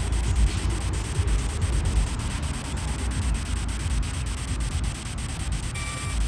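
Ghost Tube ghost-box app playing steady static hiss, chopped by rapid, even pulses several times a second as it sweeps, with a low rumble underneath.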